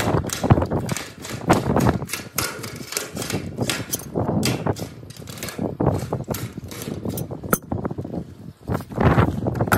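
Hand tools working a sheet-metal standing-seam roof panel: a quick, irregular run of sharp metallic clicks and knocks, several a second, with a short lull near the end.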